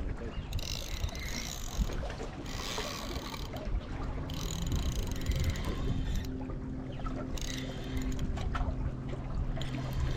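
Sounds aboard a small fishing boat: wind and water noise with hissing patches that come and go, and a steady low hum that sets in about halfway through.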